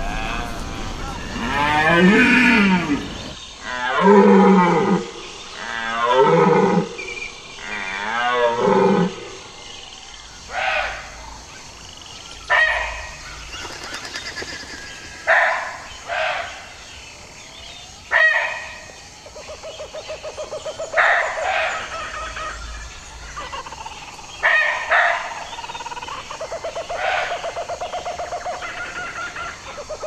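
Red deer stag roaring in the rut: long, deep bellows about every two seconds, rising and falling in pitch. They give way to a run of short, sharp calls, and in the last ten seconds to a fast pulsing call.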